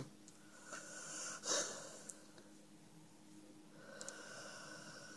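A sleeping dog snoring with slow, wheezy breaths: a sharper snort about a second and a half in, then a long drawn-out breath near the end.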